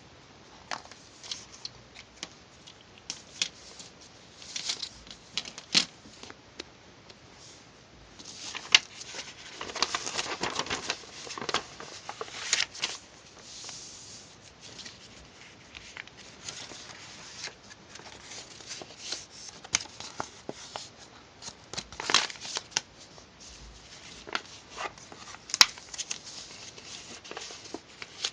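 Hands working craft materials: scattered light clicks and taps with stretches of crinkling and rustling, busiest a few seconds in and again about two-thirds of the way through.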